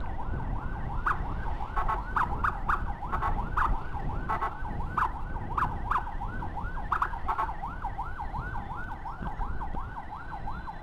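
Electronic emergency siren in a fast yelp, sweeping up and down about three times a second, over the low rumble of a motorcycle riding in traffic.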